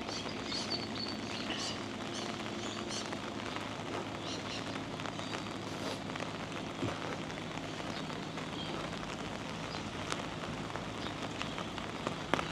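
Steady rain falling, with scattered drop ticks, and birds chirping in the first few seconds. A couple of sharp taps near the end.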